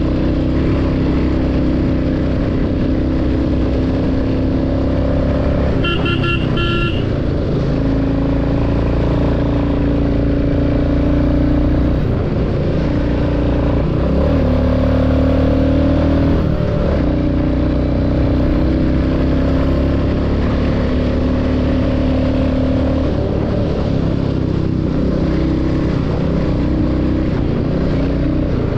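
Royal Enfield Classic 350's single-cylinder engine running under way at about 35,000 km, its pitch rising and falling with the throttle. A short double horn beep sounds about six seconds in.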